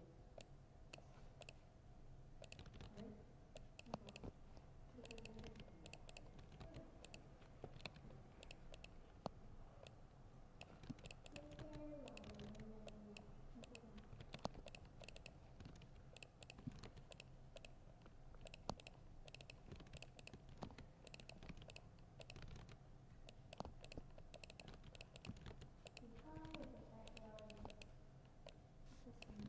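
Faint typing on a laptop keyboard: quick, irregular key clicks.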